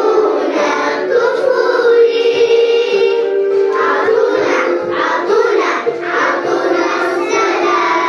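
A group of young children singing a song together in unison, the voices steady throughout.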